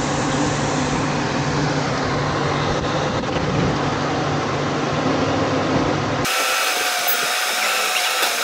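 Vehicle engines idling in stopped traffic, a steady low hum. About six seconds in, the hum drops away abruptly, leaving a thin hiss with a steady, slightly wavering whine.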